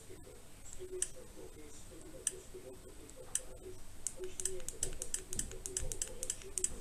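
Small buttons on a budget action camera clicking as its menus are stepped through: a few separate clicks at first, then a quick run of clicks, several a second, over the last few seconds.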